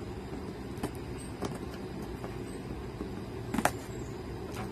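A cardboard shipping box being handled and opened: a few sharp clicks and crinkles, the loudest pair about three and a half seconds in, over a steady low rumble.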